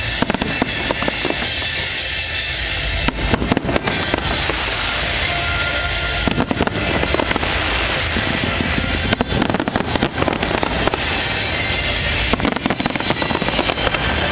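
Fireworks display: a dense string of bangs and crackling pops, thickest about three seconds in, again past six seconds and near the end, with music going underneath.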